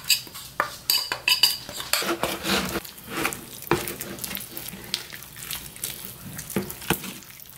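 A metal utensil stirring thick batter into flour-coated chicken gizzards in a glass mixing bowl, with many quick clinks and scrapes against the glass.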